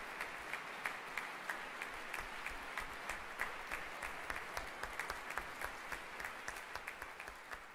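Concert audience applauding, many hands clapping in a dense, irregular patter that slowly fades toward the end.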